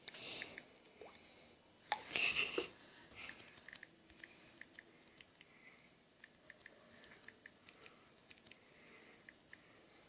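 A run of small, sharp clicks and taps, a few per second and unevenly spaced, with two brief louder rustles: one at the start and one about two seconds in.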